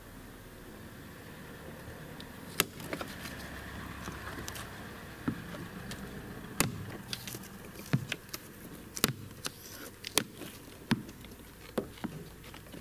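Cowl panel of a Mercedes W211 being pried up along the windscreen base, its fastening clips snapping out one after another: a series of sharp clicks, roughly one a second from about two and a half seconds in, with plastic rustling and scraping between them.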